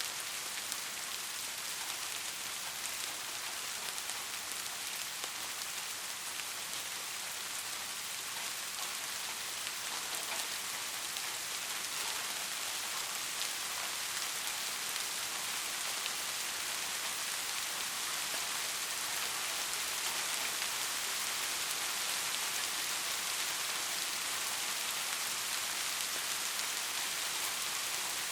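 Steady rain falling, an even hiss of many drops with fine scattered ticks from individual drops, growing slightly louder about halfway through.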